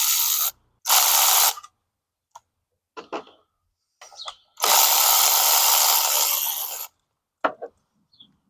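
Cordless power tool spinning out the ignition coil bolts on a Predator 224cc engine: three runs of the tool, a short one at the start, another about a second in and a longer one of about two seconds just before the middle, with small clicks and knocks of parts and tools between.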